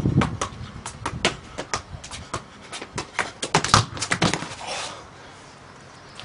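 A football being juggled on the foot: a quick, irregular run of sharp taps of the ball off the shoe, then a cluster of louder knocks and a brief scrape about four to five seconds in as the player falls onto the paving stones.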